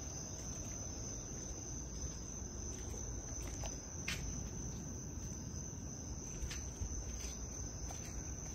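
Night insects chirping in a steady high-pitched chorus, with a few faint ticks of handling noise.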